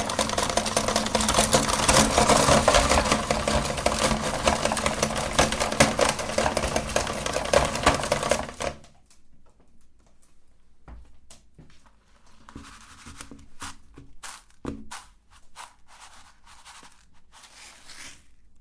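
Electric meat grinder running and crushing hard lollipop candy: a steady motor hum under dense crackling and clatter. It stops abruptly about halfway through, leaving scattered faint clicks and rattles.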